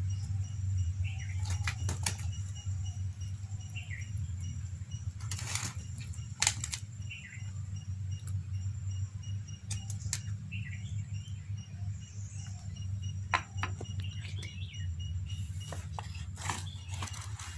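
Coconut-shell ladle scooping fish curry from a clay pot and tapping onto rice on a banana leaf: scattered clicks, scrapes and leaf rustles over a steady low hum. Faint high chirps come every few seconds.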